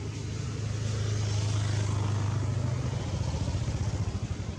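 A motor engine's low, steady hum that swells over the first two seconds and eases off near the end, as of a vehicle passing.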